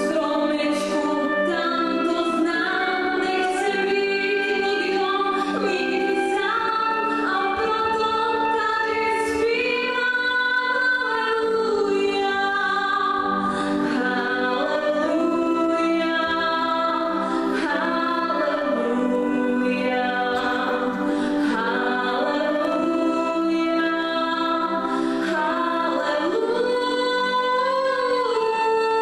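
A woman singing a slow song in long held notes, accompanied by an electronic keyboard and a transverse flute.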